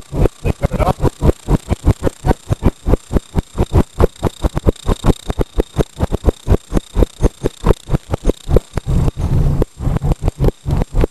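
Rapid, evenly spaced loud clicking, about four to five clicks a second, that drowns out the car ride: an audio fault from a broken camera.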